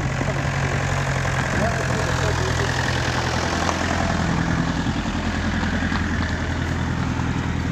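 Motor vehicle engine idling with a steady low hum, over a haze of outdoor background noise.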